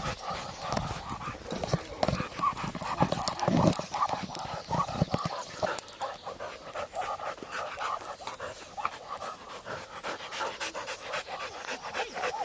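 Husky panting close to the microphone while walking, with many short clicks and knocks throughout.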